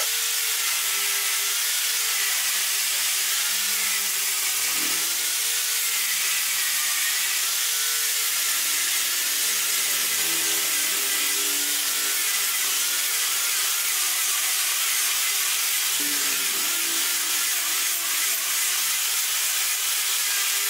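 Handheld angle grinder with a sanding disc running steadily against a curved block of wood, a continuous abrasive hiss over the motor's whine, whose pitch wavers up and down.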